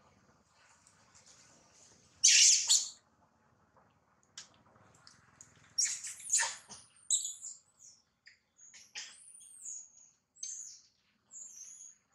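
High-pitched animal calls: one loud, harsh burst about two seconds in, then short arched chirps repeating through the second half.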